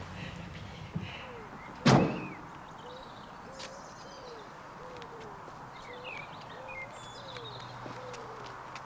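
A door slams shut about two seconds in, a second after a lighter knock. Birds then call: a run of short, low, curving calls with scattered higher chirps over them.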